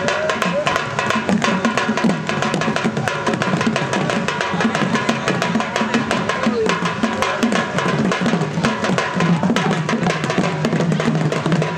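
Gond tribal folk percussion ensemble, drums carried on straps (gudum baja), playing a fast, dense, unbroken beat, with ringing cymbals over the strokes.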